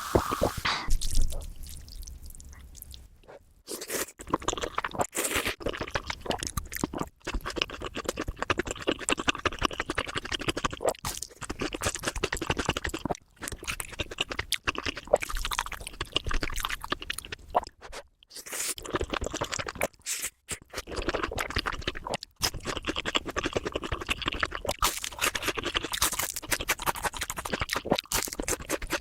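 Close-miked eating sounds: crunching and wet chewing, dense and crackly, cut off by short silent gaps several times.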